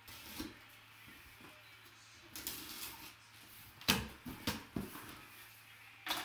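Taped cardboard shipping box being opened by hand: tape scraped and pulled, then the flaps pulled open with several sharp cardboard knocks and scrapes from about four seconds in, the loudest just before the end.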